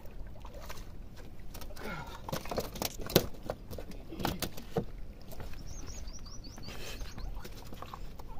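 A hooked fish splashing at the water's edge and being pulled up onto rocks, with knocks and scrapes of stone as it is grabbed; the loudest is a sharp knock about three seconds in. A bird chirps a quick series of rising notes near the middle, over wind rumble on the microphone.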